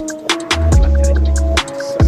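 Background music with deep bass notes and a steady beat of sharp percussion hits over held melody tones.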